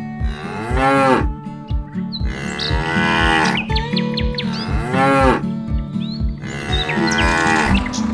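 Cartoon cow mooing about four times in long, arching calls over background music with a steady beat.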